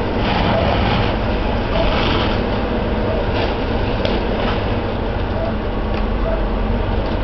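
Fire engine's diesel motor and pump running steadily while supplying water to the hose lines: a constant low engine drone.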